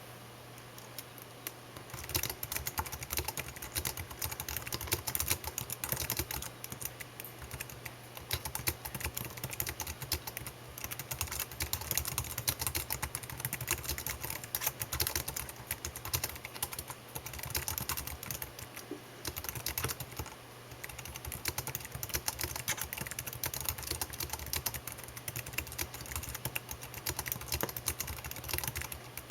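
Rapid, continuous typing on a computer keyboard, key clicks pattering with short pauses, starting about two seconds in. A faint steady low hum runs underneath.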